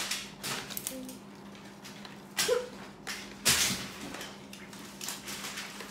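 Plastic packaging of an L.O.L. Surprise Under Wraps doll capsule rustling and scraping as it is opened by hand. Two louder rustles come about two and a half and three and a half seconds in.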